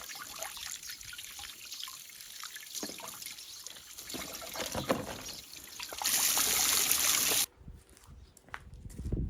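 Water trickling and splashing, with small knocks. About six seconds in, a louder steady rush of running water lasts about a second and a half and then cuts off suddenly.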